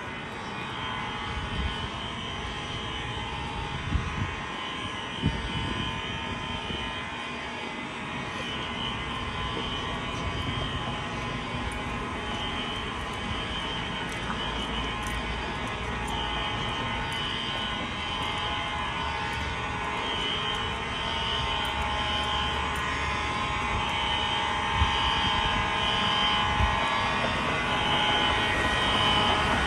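Fire alarm horns sounding together, among them a Wheelock Exceder horn, a steady electronic drone of many tones with a higher tone pulsing on and off over it. It grows slowly louder toward the end.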